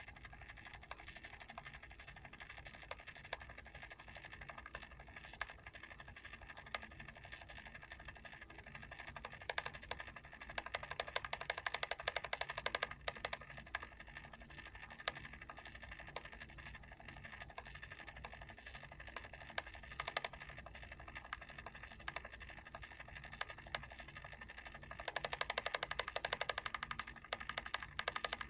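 Mechanical timer clicking quickly and evenly, with two louder stretches, one about ten seconds in and one near the end.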